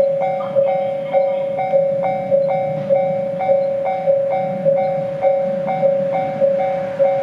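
Japanese railway level-crossing warning bell ringing steadily. Each two-tone strike comes just under twice a second, evenly spaced.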